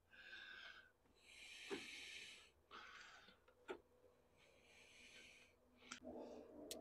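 Faint handling noise as a spark plug is fitted by hand into the generator's air-cooled engine: soft rustling hisses about a second long, four of them, and a few light clicks of metal parts touching.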